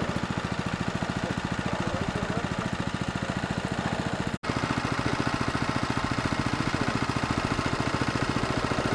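Crop-spraying helicopter running, its rotor beating in a fast, even rhythm over the engine. The sound cuts out for an instant about four seconds in.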